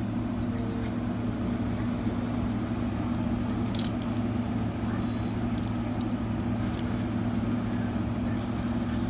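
A steady mechanical hum: a constant low drone with an even rushing noise over it, like a running motor or appliance, with a few faint clicks.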